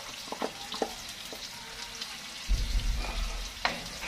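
A wooden spoon knocks a few times against a plastic container and the cooking pot while beans are scraped in, over a steady sizzle from the pot on a gas burner. A low rumble comes about two and a half seconds in, and another knock follows.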